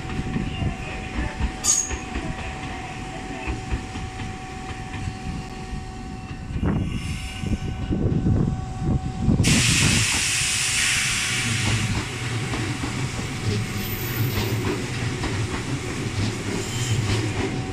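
A Tobu 800-series electric commuter train pulling into the station, its running gear rumbling over the rails. A loud hiss of air starts about halfway through, and a steady low hum follows toward the end.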